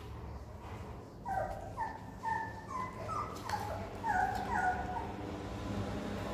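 Young puppy whimpering: about eight short, high squeals in quick succession, each dropping slightly in pitch at its end.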